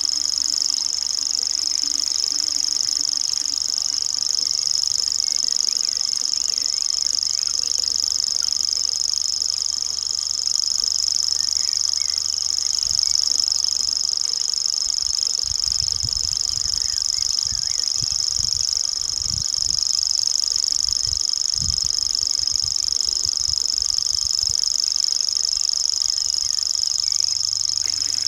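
Common grasshopper warbler (feldschwirl) reeling: one unbroken, high, insect-like trill held steady throughout. Faint short chirps sit underneath it, and low thumps come in from about halfway through.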